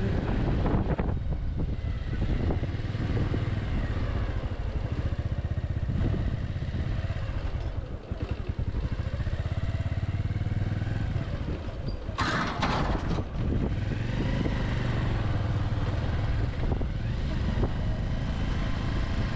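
Bajaj Avenger 160 Street's single-cylinder engine running steadily as the motorcycle is ridden, with a brief louder rush of noise about two-thirds of the way through.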